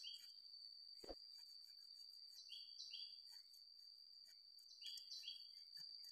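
Faint ambience: a steady high-pitched insect drone, with a bird calling three times in pairs of short chirps. One soft knock comes about a second in.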